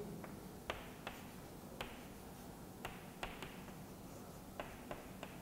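Chalk writing on a chalkboard: a string of faint, sharp, irregular clicks and taps as the chalk strikes the board with each stroke of the letters.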